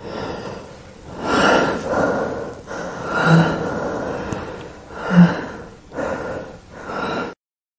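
A man gasping for air in about six heavy, laboured breaths, his voice catching twice, as he runs short of oxygen. The breathing cuts off suddenly near the end.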